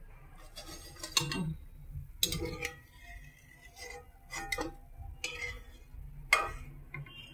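Steel perforated ladle clinking and knocking against a stainless-steel bowl several times, some strikes ringing briefly, as the freshly fried omapodi is tipped out of the ladle.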